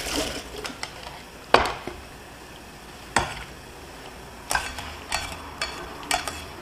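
Kitchen utensils being handled: a handful of separate sharp clicks and knocks as a metal mesh strainer and chopsticks touch a ceramic bowl and a stainless steel pot, with a brief wash of water at the start.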